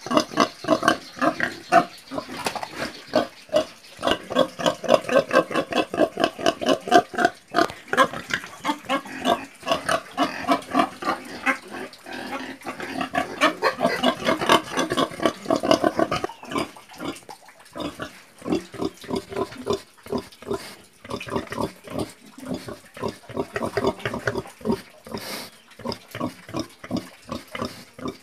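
Domestic pig grunting: a rapid run of short, repeated grunts that is loud and nearly continuous for the first half, then quieter and more broken.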